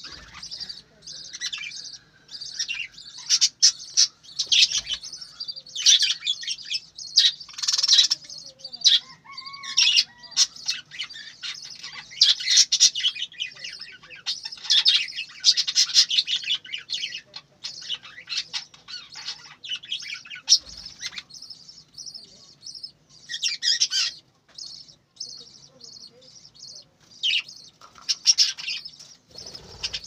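A flock of budgerigars chattering and warbling: a dense, ceaseless run of high chirps and twitters that swells into busy spells and eases off again.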